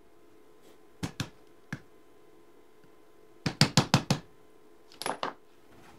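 Sharp knocks and clinks of steel parts as a new tapered roller bearing is set onto a differential carrier: a couple of knocks about a second in, a quick run of about six near the middle, and two more near the end.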